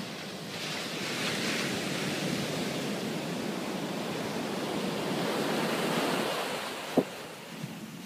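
Ocean surf washing up on a sandy beach, a steady rushing noise, with wind on the microphone. A single sharp click about seven seconds in.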